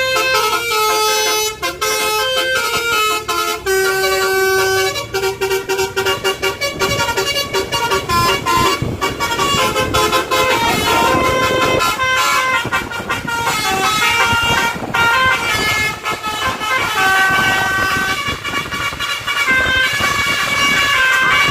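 Telolet multi-tone horn set, driven by a melody module, playing a quick tune of stepped horn notes, with sharp clicks between many of the notes.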